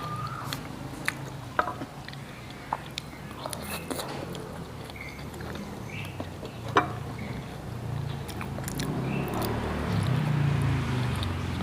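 A person chewing food, with scattered sharp clicks and crunches.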